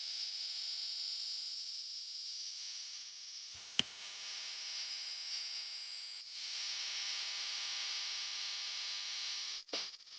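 Steady high hiss with one sharp click about four seconds in, and a brief dropout with a second click near the end.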